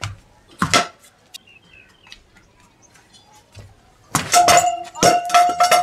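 Frying pan striking a cricket ball: a sharp metallic hit with a brief ring about a second in. Then, over the last two seconds, a loud run of rapid clattering strokes with a steady ringing tone.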